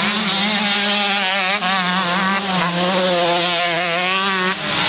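Motocross bike engine running at high revs as a rider passes, its pitch held fairly steady with a constant waver, then dropping away near the end.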